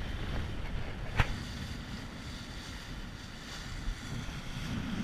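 Wind buffeting the microphone over water rushing and splashing along the hull of a Mirror dinghy sailing in a fresh breeze, with one sharp knock about a second in.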